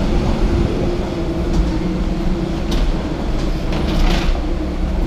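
Steady mechanical hum and rumble inside an airport jet bridge, with a wheeled suitcase rolling along the floor. A few short clicks and rattles come as the wheels cross the floor joints.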